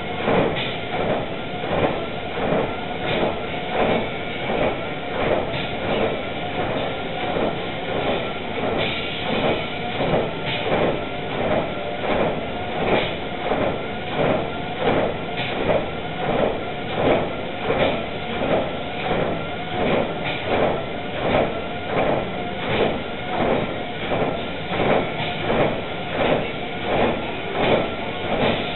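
Footfalls striking a treadmill's moving belt at a steady running pace: an even, repeating thud over the treadmill's own running noise.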